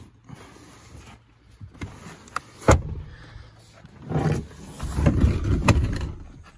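A car's rear seat cushion being manoeuvred back into place. A sharp knock comes about two and a half seconds in, then a stretch of low bumping and rubbing of the seat against the car's trim and floor, with a click in the middle of it.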